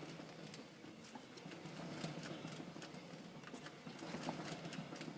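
Raised front wheel of a 2008 Jeep Wrangler JKU free-spinning, with a rhythmic clunking and clicking from the front drive line. The owner traces it to a bad CV joint at the transfer-case end of the front drive shaft.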